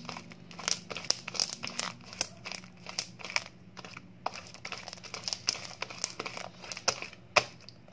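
Purple fluffy slime, made of glue and shaving foam, being stretched and kneaded by hand. It gives off a dense run of irregular sticky crackles and pops, the crackly sound slime-makers call crackalacky.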